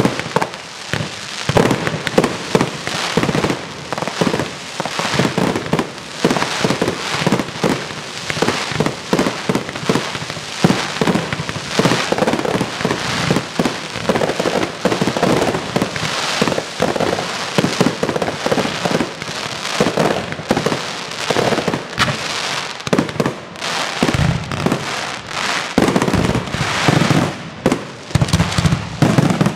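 Fireworks display: aerial shells bursting in rapid, overlapping volleys, a dense run of bangs and popping crackle, with deeper booms in the last few seconds.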